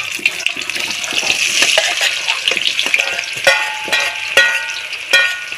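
Potato chunks sizzling as they hit hot oil in a kadai, a steady frying hiss. A metal spatula scrapes and knocks against the metal pans, with three ringing clanks in the second half.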